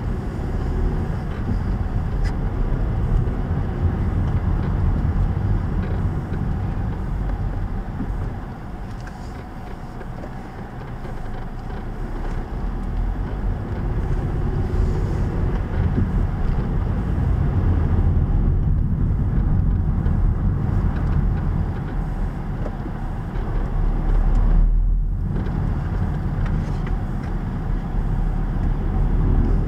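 Car engine and tyre noise heard from inside the cabin: a steady low rumble. It eases off about a third of the way through and builds again for the rest of the drive.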